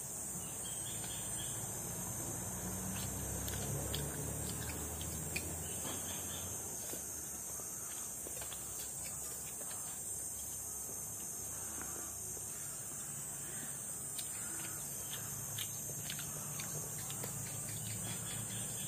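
A steady, high-pitched chorus of insects, with faint scattered clicks and taps underneath.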